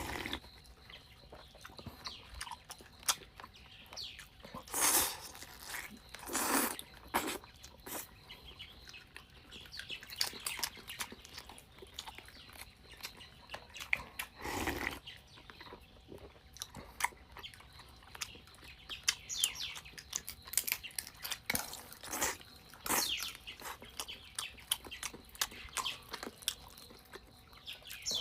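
A person eating stewed chicken close to the microphone: chewing and mouth sounds with many small wet clicks and several louder noisy bursts, about five seconds in, six and a half, fourteen and a half, and twenty-two to twenty-three seconds in.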